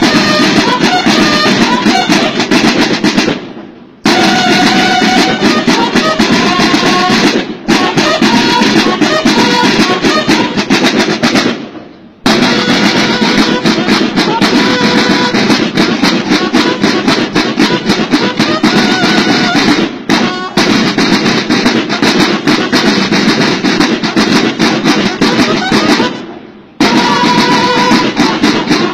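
Music with drums and held melody notes. It fades out and cuts back in abruptly a few times.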